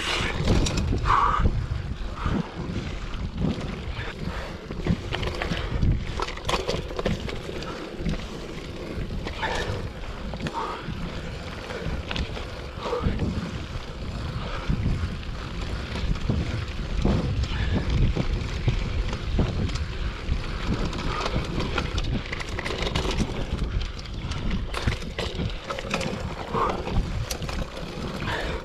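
Wind buffeting a handlebar-mounted camera's microphone while a mountain bike rolls fast down a dirt forest trail. The ride brings a steady rumble of tyres and a stream of short rattles and knocks as the bike goes over bumps.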